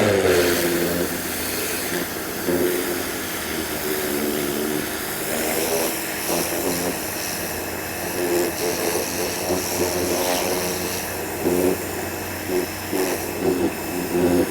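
Ryobi 1600 PSI electric pressure washer spraying with the trigger held: a steady, loud hiss of high-pressure water over the hum of the electric motor and pump. It starts suddenly.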